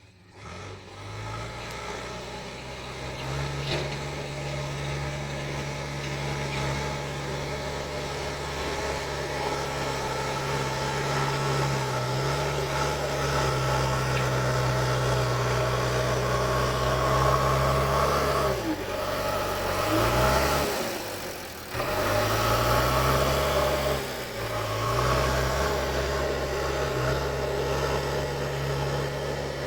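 JCB 3DX backhoe loader's diesel engine running, swelling in over the first couple of seconds. About two-thirds of the way through, its pitch falls and picks up again twice, with a shorter dip near the end.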